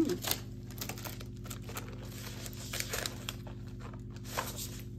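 Rustling and crinkling of items being handled, with scattered light clicks and taps as a glittery clutch purse is turned over and opened.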